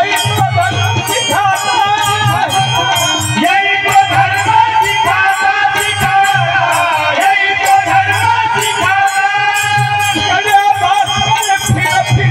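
Live devotional bhajan: men singing over a harmonium, a two-headed barrel drum and a rattling percussion beat, amplified through a PA.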